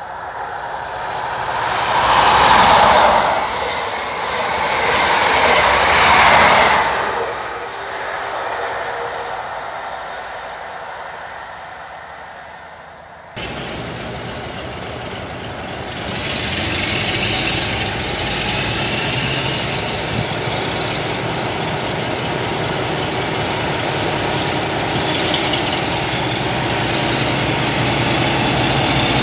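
Network Rail's Class 43 HST power cars 43290 and 43299 passing at speed, a loud rush of wheels and engines that swells twice and fades. After a cut, a West Coast Railways Class 47 diesel locomotive running steadily as it hauls coaches slowly through a station, with a high squeal from the train soon after.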